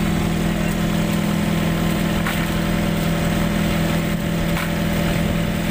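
Engine of a motorized outrigger boat (bangka) running steadily at idle, with a constant low hum and a few faint knocks.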